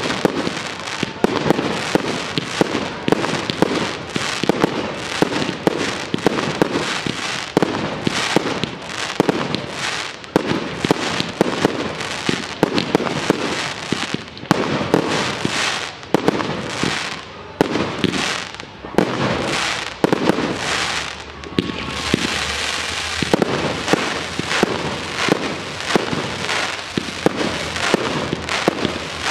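Professional fireworks display: a rapid, unbroken barrage of aerial shell bursts and bangs. About two-thirds of the way in, a steadier noise fills in between the bangs.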